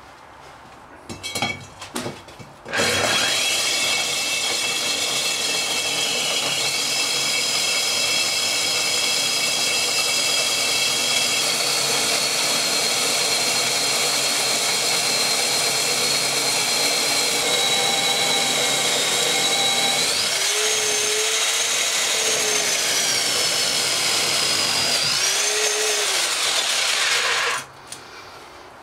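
SDS drill turning a 4-inch diamond core bit into a concrete block wall with the hammer action off: a steady whining grind of motor and diamond segments cutting block, as the bit works through the wall's outer skin. It starts about three seconds in after a few light clicks, its whine rises in pitch twice in the last third, and it cuts off suddenly a second before the end.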